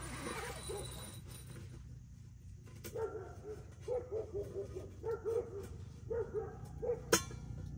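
A dog giving a string of short, repeated yelping calls in quick clusters from about three seconds in, ending with a sharp click near the end.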